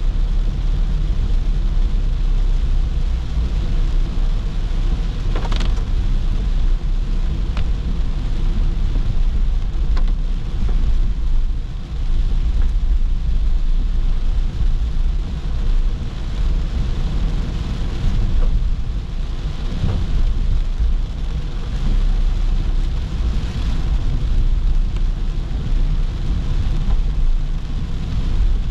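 A car driving on a wet road in the rain: a steady low rumble with the hiss of rain and wet tyres, and a few sharp ticks.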